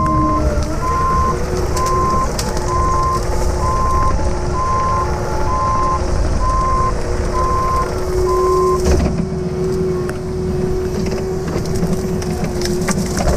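Cat 306 mini excavator's diesel engine running under load, with a motion alarm beeping about once a second for the first two-thirds, then stopping. Brush cracks and snaps in the later part as the boom pushes into it.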